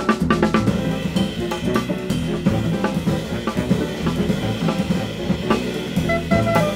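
Live ensemble music with the drum kit prominent: snare and bass drum strokes crowd the first second, then held notes from the band carry on over the beat.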